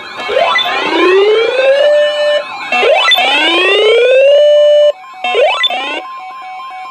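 Electronic emergency alert alarms sounding loudly together: a whooping tone that rises in pitch three times, about two and a half seconds apart, over wavering tones, then a steady single-pitch alert tone near the end, ahead of a weather radio warning broadcast.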